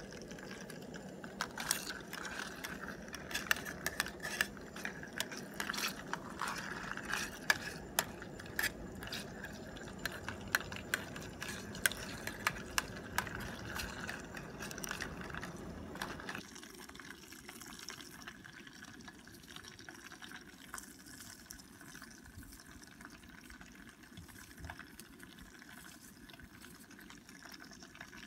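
Meat frying in an aluminium mess tin over a cartridge gas burner: sizzling and crackling over the steady rush of the burner flame. About 16 seconds in the sound drops away abruptly, leaving only a quiet background with a few faint ticks.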